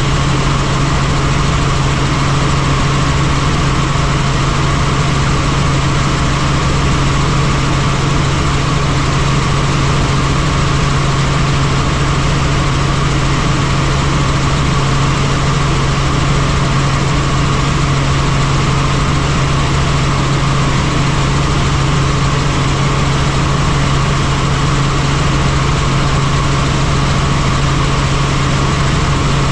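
Helicopter running steadily: a loud, unchanging drone of engine and rotor noise with a strong low hum.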